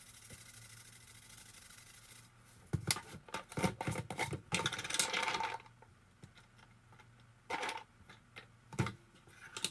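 Black seeds rattling as they are shaken from a spice container onto a bowl of oats for a few seconds, followed by a few light knocks as walnut pieces are set down in the bowl.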